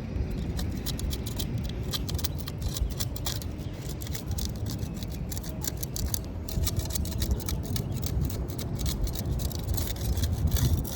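Asphalt shingles being handled and lifted, a run of irregular crackling and scraping clicks, thickest near the end, over a steady low rumble.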